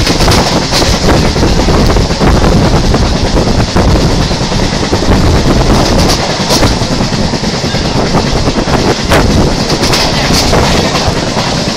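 EMU suburban electric train heard from on board while accelerating: steady loud rumble and thudding from the bogie, with wheels clacking over rail joints a few times at uneven spacing.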